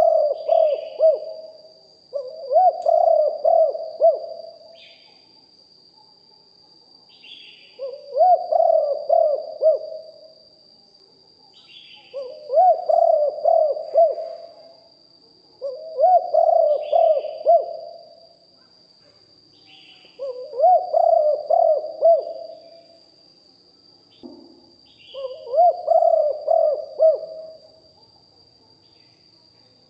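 Spotted dove cooing its repeated phrase, about two seconds long, seven times with pauses of a few seconds between. A faint steady high whine runs underneath, with faint short chirps between the phrases.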